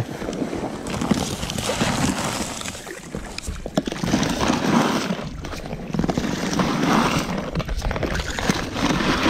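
Water splashing and sloshing around a small rowed boat, swelling every couple of seconds with the oar strokes, with wind rumbling on the microphone.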